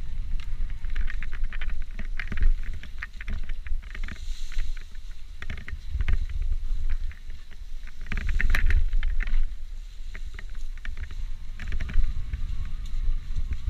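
Electric mountain bike ridden over a rough trail: wind rumbling on the microphone, with a running clatter of clicks and rattles from the bike and tyres over the ground, heaviest in two rough stretches.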